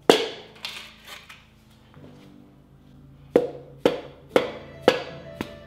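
Background music: sustained low notes under sharp percussive hits, which settle into a steady beat of about two a second in the second half.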